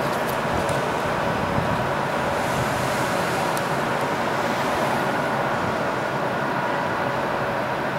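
Steady traffic noise of a city street, with a constant hum running through it.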